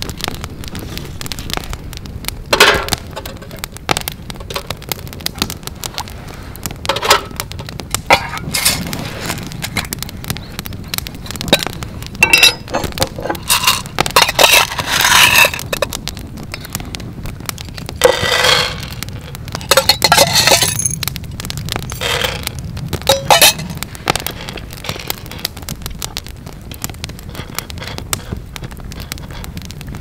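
Wood campfire crackling throughout, with a run of louder clinks and rattles of metal camp gear: a copper scoop and a steel cup, with dry green coffee beans poured into it. The clinks are busiest around the middle.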